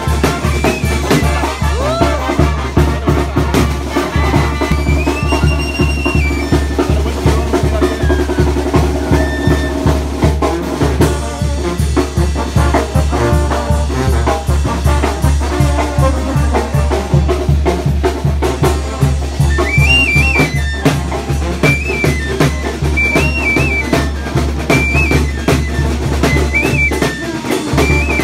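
Brass band music with a steady drum beat and a held trumpet-like melody line.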